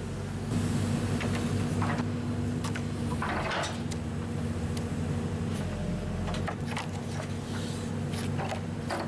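An engine running steadily at an even speed, with scattered knocks and clattering over it, the loudest a short burst of clatter about three seconds in.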